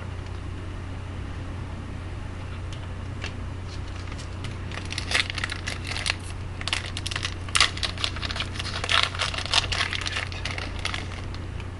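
Wrapper of an Upper Deck Champ's hockey card pack being torn open and crinkled: a dense flurry of crackling starting about four and a half seconds in and dying away near the end. A steady low hum runs underneath.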